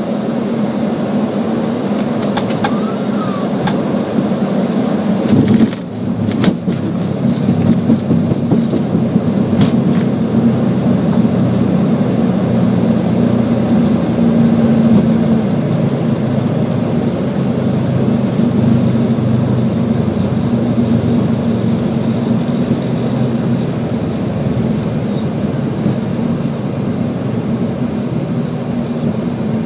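Boeing 737 touching down and rolling out on the runway, heard from the flight deck: a loud, steady rumble of engines and wheels. There are a few knocks in the first seconds around touchdown, and a short dip about six seconds in before the noise builds again and holds.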